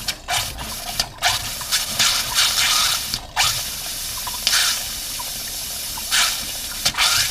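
A hot water faucet running and sputtering, spitting air and water in irregular spurts. The air trapped in the hot water line is being purged after the water heater was drained and refilled.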